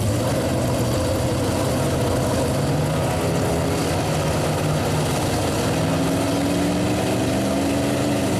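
Two pickup trucks' engines revving hard under load as the trucks pull against each other in a tug-of-war, chained tail to tail. The engine pitch climbs slowly over the second half.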